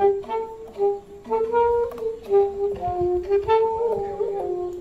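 Saxophone playing a slow melody of held notes, one note after another.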